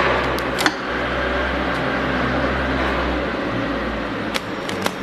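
Foot-pedal heat sealer humming steadily while its jaw is clamped shut on a plastic bag. The hum fades near the end. Sharp clicks come about two-thirds of a second in and twice near the end.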